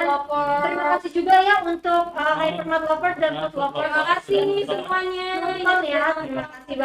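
A woman's voice singing, going on without a break and holding some notes steady.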